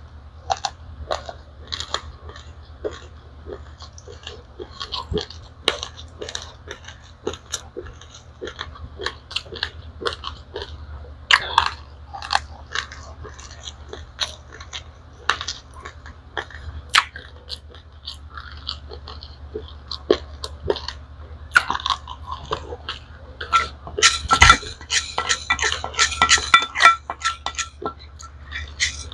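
A person chewing mouthfuls of dry-roasted raw rice, with many small, irregular crunches of the hard grains. A denser, louder burst of crunching and rattling comes near the end, over a low steady hum.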